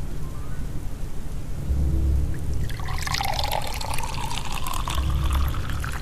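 Water pouring from a spout into a plastic cup. It starts a little before halfway and cuts off suddenly.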